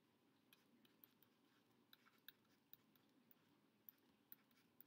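Near silence with faint, irregular ticks and taps of a stylus writing on a tablet.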